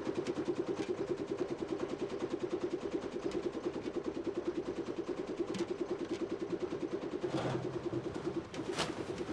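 Mercedes-Benz refuse lorry's diesel engine idling with a steady, fast pulse. A couple of sharp knocks come near the end.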